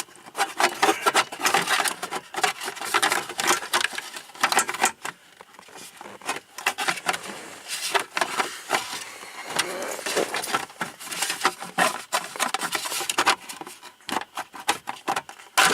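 Irregular clicking and rattling of plastic and metal parts as a turn signal switch is wiggled and forced into place on a tilt steering column.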